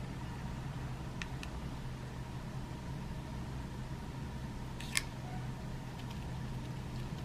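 A few light clicks of .177 lead airgun pellets being handled in a metal tin and set on a digital scale, with one sharper click about five seconds in, over a steady low hum.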